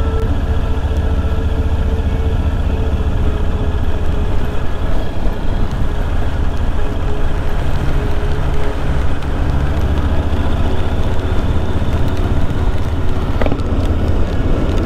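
Kawasaki VN1500 V-twin running at a steady cruise under a heavy rumble of wind on the microphone, with hiss from the tyres on the wet road.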